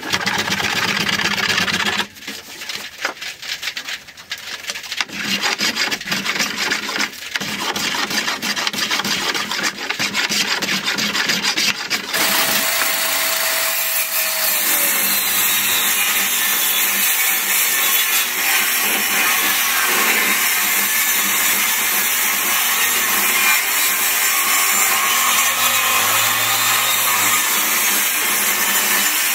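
Irregular scraping strokes and handling of a wooden board for about twelve seconds, then a benchtop table saw starts abruptly and runs steadily, ripping a thick live-edge board along its fence.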